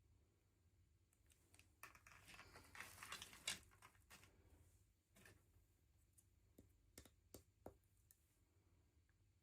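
Faint handling sounds of small toy packaging: a short stretch of soft rustling with small clicks, then a few isolated light clicks near the end.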